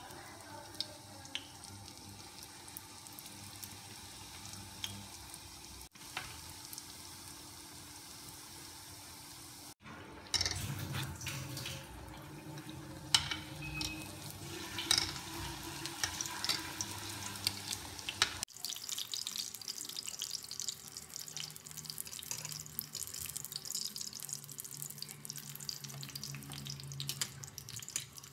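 Popiah frying in shallow oil in a stainless steel pan: steady sizzling with fine crackles, louder and busier from about ten seconds in, with a few sharper clicks.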